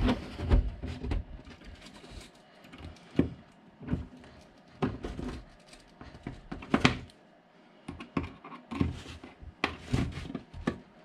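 Irregular clicks, taps and scrapes as long-nose pliers grip and pull on the rail of a piece of OO gauge flex track held down on the baseboard by hand.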